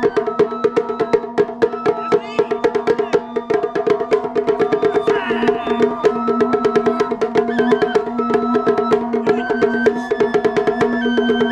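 Japanese taiko drum ensemble playing a fast, even rhythm of sharp strikes, with a high melody moving in steps over steady low tones.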